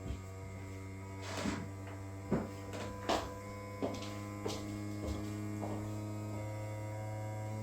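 Bambu P1S 3D printer's motors humming through its vibration-compensation calibration: a set of steady tones that steps to a new pitch about four seconds in, with half a dozen sharp clicks or knocks in the first five seconds.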